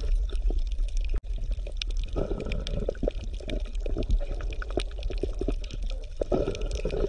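Water bubbling and gurgling in many small irregular pops, heaviest through the middle, over a steady low hum.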